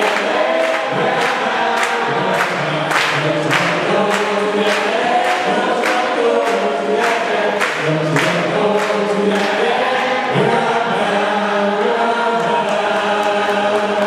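Gospel vocal group singing through microphones, with hands clapping on the beat about twice a second; the clapping thins out in the second half.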